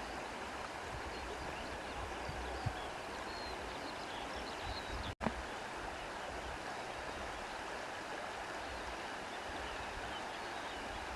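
Steady rushing of a stream's running water, with a momentary break in the sound about five seconds in.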